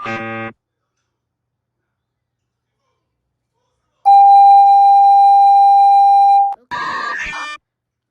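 South Korea's emergency alert alarm played back. A burst of stacked electronic tones cuts off about half a second in. After a few seconds of silence comes one loud, steady beep tone about two and a half seconds long, then a second short burst of stacked tones.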